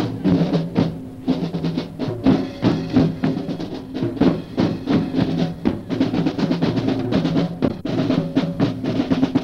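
Marching band music: snare and bass drums playing a fast, busy rhythm under held low notes.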